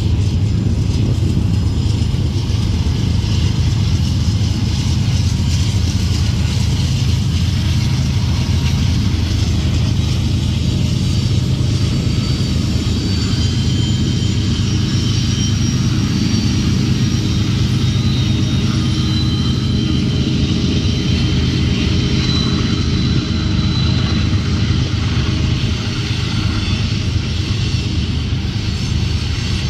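Diesel freight locomotives rumbling steadily, with faint high-pitched squeals coming and going from about twelve seconds in.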